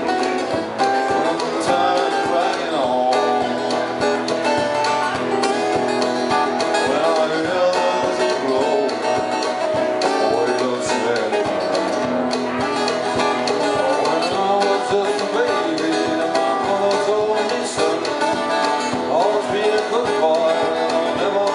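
Two acoustic guitars playing a country tune together, strummed and picked at a steady tempo.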